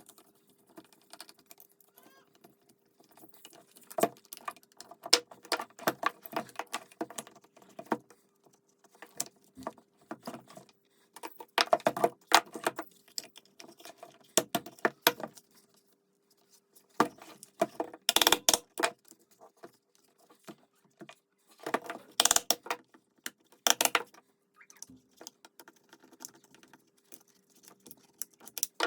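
Small metal parts and hand tools clinking, tapping and rattling in irregular clusters while an electric breaker hammer is worked on, its burnt-out carbon brush holders being repaired. The loudest clatter comes in short runs about 12, 18 and 22 seconds in, over a faint steady hum.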